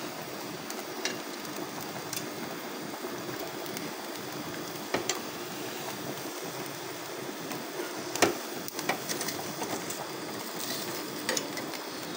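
Gas stove burner flame hissing steadily, with metal tongs clicking against the wire grill rack as the prawns on it are turned; the sharpest click comes about eight seconds in.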